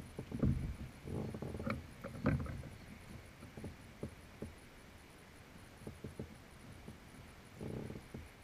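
Irregular knocks and bumps on a plastic kayak hull as things are handled on deck. They are busiest in the first couple of seconds and then thin out to scattered light clicks, with a short cluster of bumps near the end.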